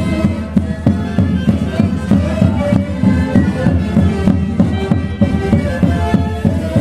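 Live Andean orquesta típica playing a Santiago festival tune: reed wind instruments and violin carrying the melody over a steady beat.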